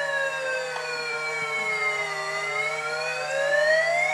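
Toy fire truck's electronic siren sound: one slow wail that falls in pitch for about two seconds, then rises again, over a steady low hum.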